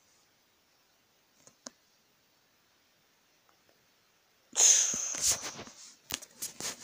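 Phone-microphone handling noise: after several seconds of near silence, a sudden loud rustle as a plush toy's fur is pushed against the phone, fading over about a second, then a few sharp knocks from the handling.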